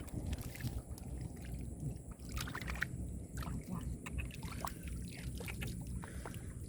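Hands sloshing and splashing through shallow water and moss, with many short scattered splashes and clicks over a low steady rumble.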